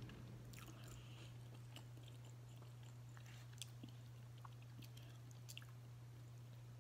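Faint chewing and scattered small clicks of someone eating rice with her fingers, over a steady low hum.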